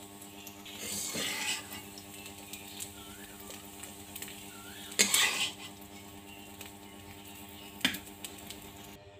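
Steel spatula scraping and knocking against a metal kadai while scooping up cooked scrambled egg, in three short bouts: about a second in, at about five seconds, and a single knock near eight seconds, over a steady low hum.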